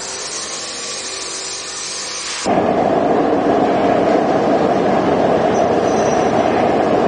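Concrete-pole factory machinery running with a steady hissing noise. About two and a half seconds in, it cuts abruptly to a louder, steady rumbling machine noise.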